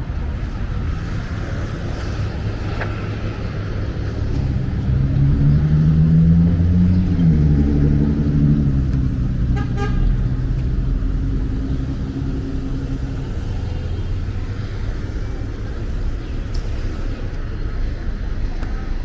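Street traffic: a road vehicle's engine passes close, its pitch rising and then falling between about five and nine seconds in. About ten seconds in a car horn gives a brief toot.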